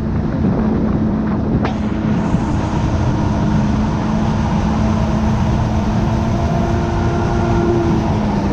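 Jet ski engine running at a steady pitch under a dense rushing noise.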